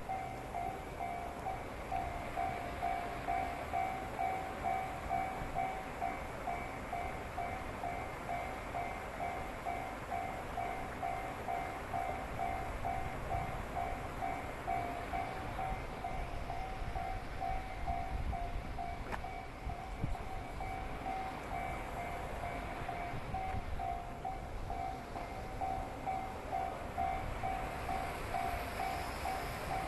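Japanese railway level-crossing warning bell ringing steadily, an even 'kan-kan' repeating a couple of times a second, over the low rumble of a train on the line.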